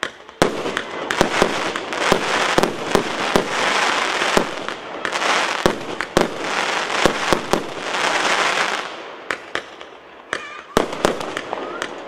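Multi-calibre consumer fireworks battery (258-shot cake) firing. Rapid launches and bursts ride over a dense continuous rush of sound, which thins after about nine seconds to separate bangs.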